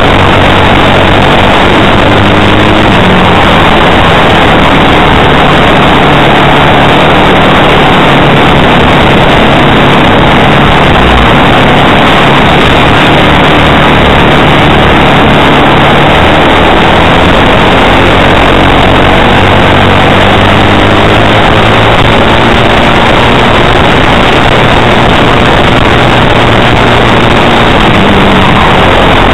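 Onboard sound of a racing kart's four-stroke World Formula engine at racing revs, very loud and close, with its pitch rising and falling as it accelerates and lifts through the corners.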